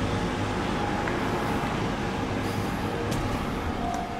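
Steady street traffic noise: road vehicles running past at a town street, an even rumble and hiss without a single standout event.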